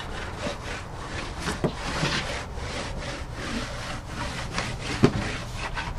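Cloth rag rubbed in repeated back-and-forth strokes over a painted panel, wiping dead bugs off the surface. A couple of small sharp taps, the loudest about five seconds in.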